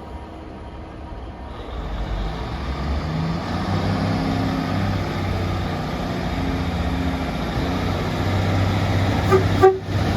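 A train running past, its engine hum growing louder over the first few seconds, with two short horn toots near the end.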